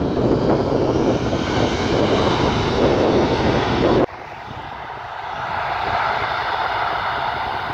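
Airbus A320 jet engines: a loud rushing roar that drops off abruptly about four seconds in, leaving a steady high whine from the engines.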